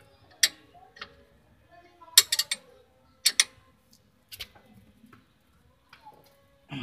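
Combination wrenches clicking and clinking on a stabilizer link nut while the nut is loosened: a scattering of short, sharp clicks, some in quick twos and threes, with gaps between them.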